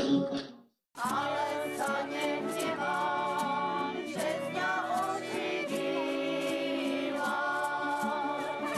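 Music fades out and stops within the first second. After a brief silence, a group of voices sings a song with an acoustic guitar.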